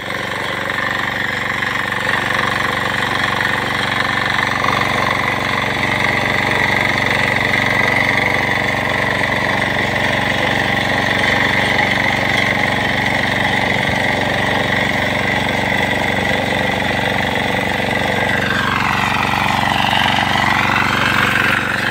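9 hp walk-behind power tiller's single-cylinder diesel engine running steadily under load as its rotary tines churn dry soil. Near the end a separate sound falls in pitch and rises again over about three seconds.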